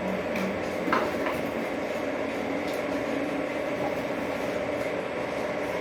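O gauge model train running along three-rail 027 track: a steady hum from its motor and wheels, with two light clicks about a second in.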